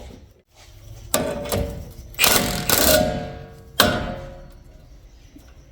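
Impact wrench run in two short bursts, driving a ball-joint puller against the steering knuckle. Near the end comes a single sharp metallic bang that rings out, as the ball joint stud breaks loose.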